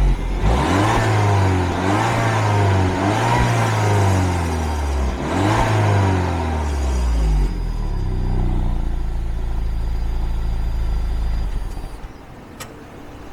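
Peugeot RCZ's 1.6-litre turbocharged four-cylinder petrol engine revved in several quick blips, each rising and falling. It settles to a steady idle about seven and a half seconds in and cuts out about twelve seconds in, followed by a single click.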